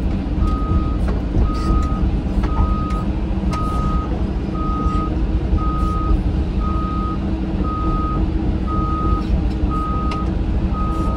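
Caterpillar 313 hydraulic excavator's diesel engine running steadily, with its travel alarm beeping about once a second, heard from inside the cab.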